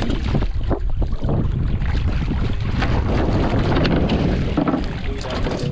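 Water splashing as a hooked giant trevally thrashes at the surface and is lifted out of the sea by hand, in a run of short, sharp splashes over a steady low rumble of wind on the microphone.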